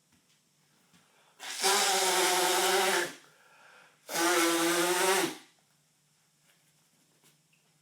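A man blowing his nose hard twice. Each blow lasts about a second and a half at an even loudness, with a short breath between them.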